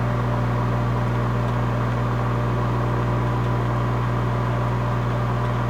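Microwave oven running with a steady, unchanging hum.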